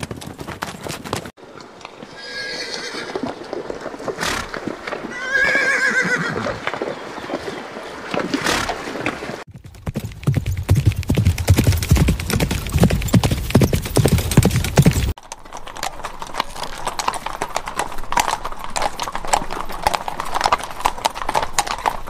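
Horse sounds in several cuts. First horse hooves clopping, and two horse whinnies a few seconds in. From about ten seconds comes a horse galloping on a dirt trail with deep, rapid hoofbeats, which cut off suddenly about fifteen seconds in, giving way to shod hooves clip-clopping at a walk on a paved street.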